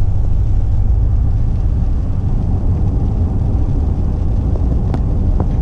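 Steady low rumble of a vehicle being driven, engine and road noise, with a couple of faint clicks about five seconds in.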